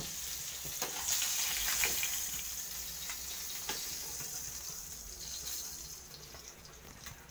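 Small fish frying in oil in a pan: a steady sizzling hiss with a few scraping clicks from the spatula, fading over the last couple of seconds.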